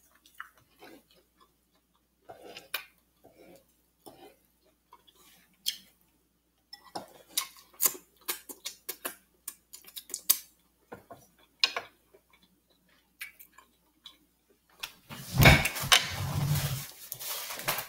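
Close-up mouth sounds of eating with the fingers: scattered wet smacks and clicks of chewing and lip smacking. Near the end a louder stretch of rustling as a paper napkin is rubbed between the hands.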